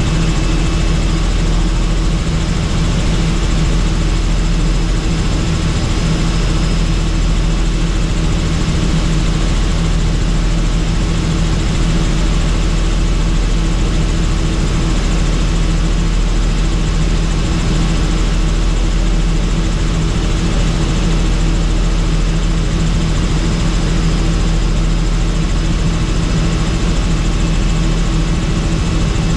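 Helicopter in flight, its engine and rotors running at a steady, unchanging pitch: a loud, even noise with a deep low hum and a couple of steady tones.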